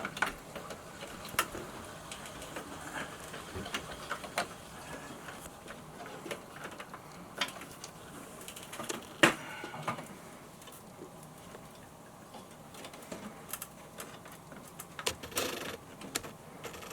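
Scattered sharp clicks and knocks of hand tools and wire working inside an electrical junction box, as wires are pushed past the box's clamping tab, with a short stretch of scraping near the end.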